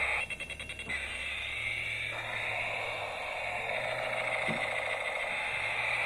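Small battery-powered toy motor running with a steady whir, starting with a brief quick rattle of clicks.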